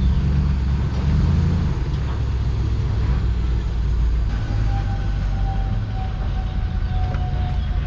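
Bucket truck's engine running at low speed as the truck is driven slowly into position, a steady low rumble, with a faint thin whine coming in about halfway.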